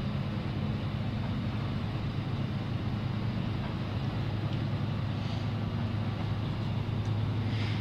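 A machine running steadily with a low, even hum under constant mechanical noise, with a short hiss near the end.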